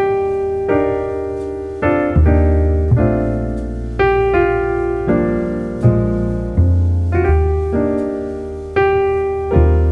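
Background piano music: sustained chords over deep bass notes, a new chord struck about once a second and each fading away.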